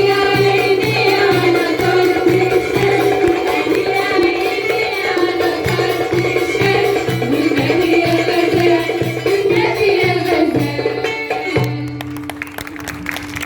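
Egyptian simsimiyya folk ensemble playing live: plucked simsimiyya lyre melody over a steady drum beat of about two strokes a second. The music stops abruptly about 12 seconds in.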